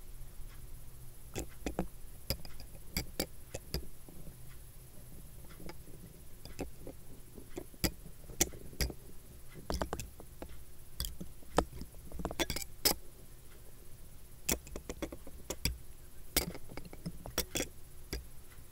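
Kaleidoscope being turned: irregular light clicks and clinks, some in quick clusters, over a faint steady hum.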